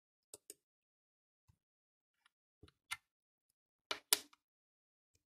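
Scattered small clicks and taps from handling a 200-lire aluminium-bronze coin on a wooden tabletop, with the loudest pair of knocks about four seconds in.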